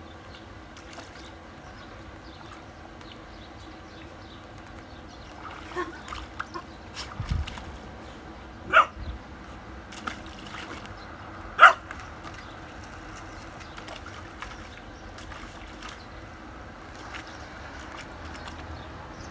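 Puppy splashing and pawing at the water in a plastic paddling pool, with a cluster of short sharp sounds about six seconds in and two louder sharp ones at about nine and twelve seconds.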